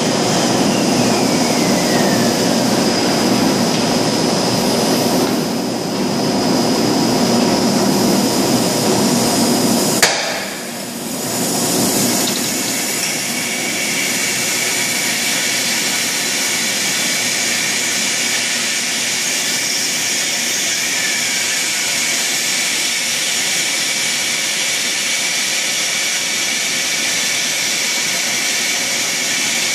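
Plastic-drum blow-moulding machine running: loud, continuous machinery noise. About ten seconds in there is a sharp knock, the noise dips briefly, and then it settles into a steadier hiss with a thin high tone.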